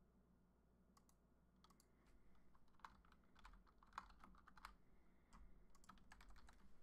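Faint typing on a computer keyboard: irregular clusters of keystroke clicks starting about a second in, with a pause around the five-second mark.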